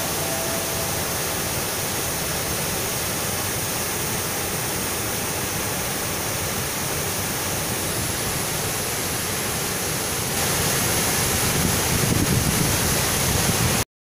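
Bogatha waterfall in heavy monsoon flow: a steady rush of falling water across a wide cascade. It grows louder about ten seconds in and cuts off suddenly near the end.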